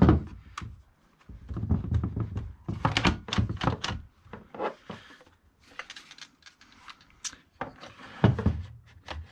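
Plastic and metal knocks, clicks and rattles from handling a chainsaw power head and its scrench on a bench, with a sharp thunk at the start and another near the end.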